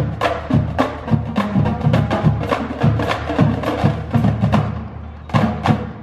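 Marching drumline of snare and tenor drums playing a fast cadence of sharp stick strikes. It eases off briefly about four and a half seconds in, then ends on a few loud accents.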